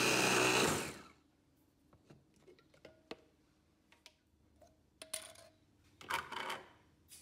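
Electric mini food chopper running as it grinds fresh sweet corn kernels in its stainless steel bowl, then cutting off about a second in. Light clicks and metallic clinks follow as the lid comes off and the bowl and blade are handled.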